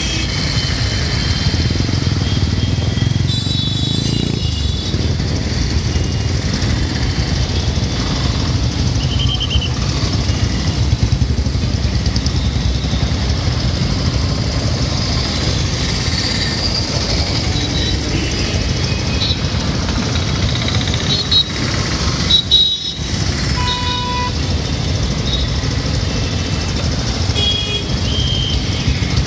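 Busy street traffic at an intersection: motorcycles, scooters and auto-rickshaws running past in a steady engine rumble, with short horn toots scattered throughout.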